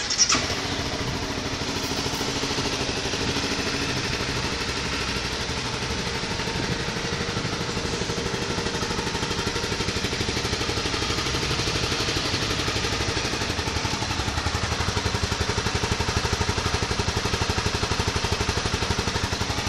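Honda CBR250R's single-cylinder four-stroke engine through its stock exhaust. It catches with a brief loud flare at the start, then idles steadily in neutral while still cold.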